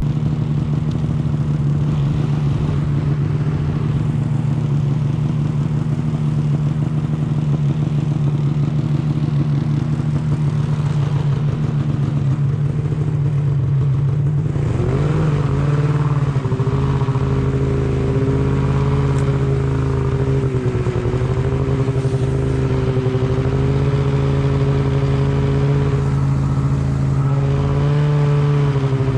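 Snowmobile engine running steadily, then revving up about halfway through and holding a higher, steady pitch.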